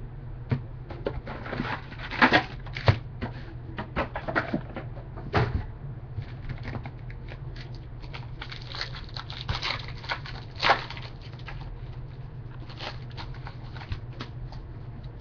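Trading cards being handled and flipped through: irregular taps, clicks and rustles, in busier clusters about two seconds in and again around ten seconds, over a steady low hum.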